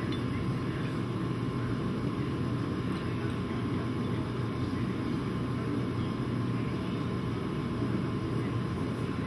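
A steady low drone of machinery with a hum in it, unchanging throughout, with a faint click about three seconds in.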